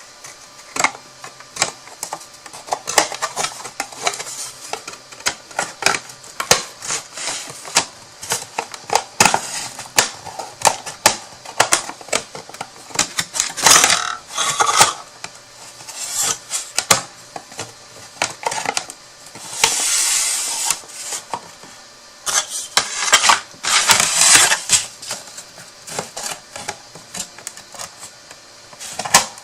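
A cut cardstock box being folded and assembled by hand: many small clicks and taps as the card tabs are pressed and snapped into their slots, with a few longer rustling scrapes of card sliding against card.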